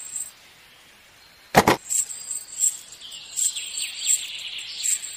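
A small metal toy chain jangling and clinking as it is handled and hooked onto a toy car, with one sharp knock about one and a half seconds in.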